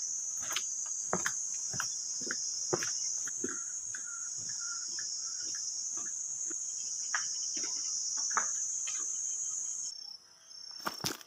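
Steady high-pitched insect chorus in forest, with irregular footsteps on a stony dirt path. The insect sound cuts off suddenly near the end, leaving it much quieter.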